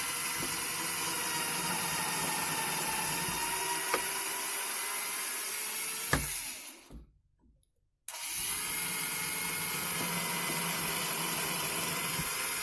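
Electric drill running into wood in two long runs. It spins down about six and a half seconds in and starts again after a pause of about a second.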